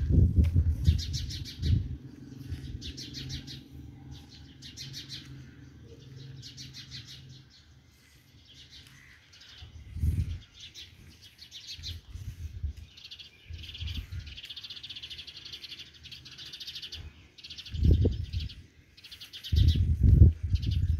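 Birds chirping in short, quick trilled phrases that repeat every second or two, with several dull low thumps from cooking handling at the pot.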